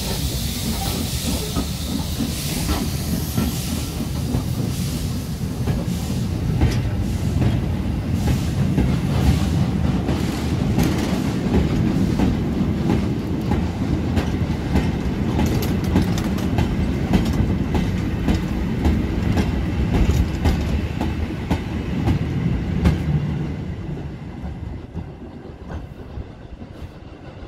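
Loose-coupled goods wagons and brake vans rolling past close by: a steady wheel rumble with rapid clickety-clack and clanks over the rail joints. It fades away about three seconds before the end as the last brake van goes by.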